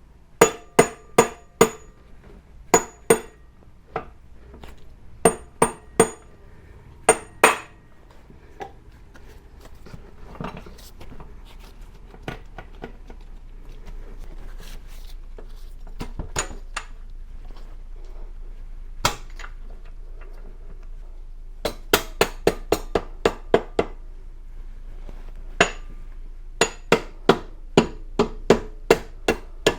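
Hammer tapping the rear axle through a motorcycle's rear wheel and swingarm: runs of sharp metallic taps with a ringing tone, several quick strikes at a time, with pauses and a few single knocks between.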